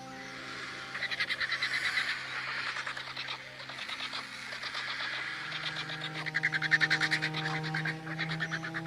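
Two bursts of rapid, evenly pulsed animal calls, each about a second and a half long, over a bed of steady low tones.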